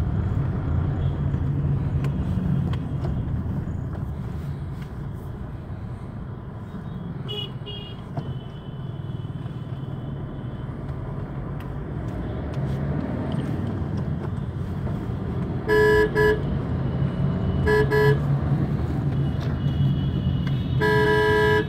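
Steady low road and engine rumble inside a car creeping through city traffic, with car horns honking: a faint one about a third of the way in, short loud honks about three quarters through, and a longer loud honk near the end.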